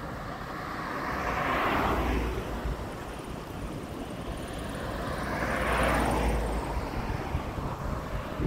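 Two vehicles passing one after the other on a road, each a rising then falling rush of tyre and engine noise, the first peaking about two seconds in and the second near six seconds.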